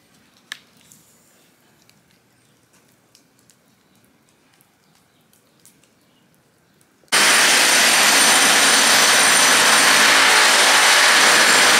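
Faint crackling of a wood fire, then about seven seconds in a power tool starts up suddenly and runs loud and steady with a high whine, cutting chases into a masonry wall.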